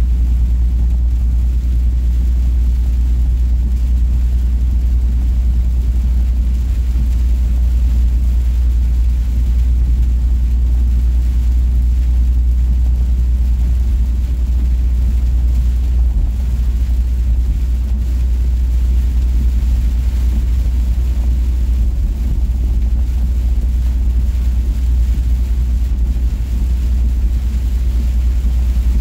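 Steady low drone of a semi truck's diesel engine and road noise at highway speed, heard from inside the cab, unchanging throughout.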